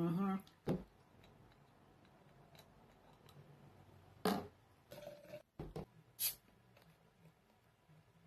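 Bottles being handled on a table: a few scattered knocks and clicks of glass and plastic bottles picked up and set down, the loudest about four seconds in and again about six seconds in.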